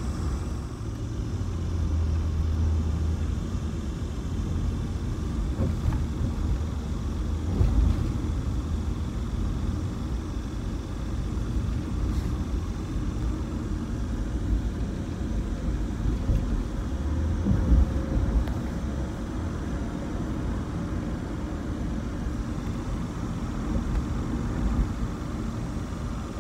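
Steady low road and engine rumble heard inside a moving car's cabin, with a few brief louder thuds.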